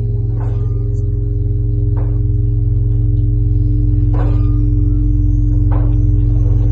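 Huge Lavra bell, the Tsar Bell, sounding a deep, steady hum of held tones that grows slightly louder, with faint knocks about every one and a half to two seconds as it is swung.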